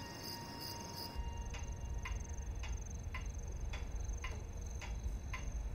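Night insect ambience with crickets: a steady high trill and a short chirp repeating about twice a second, over a low hum.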